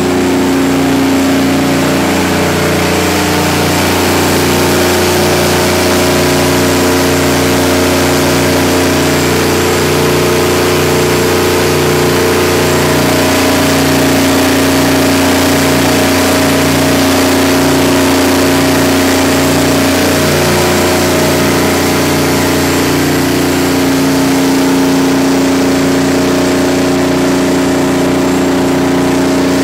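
Detroit Diesel 12V92 two-stroke V12 diesel engine of a 500 kW generator set running at a steady speed, with a slow, regular pulsing in its low drone.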